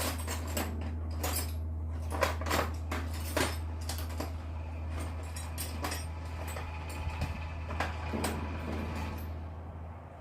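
Metal hand tools clinking and knocking as Allen keys are handled and tried for size on a brake caliper bolt, over a steady low hum that stops near the end.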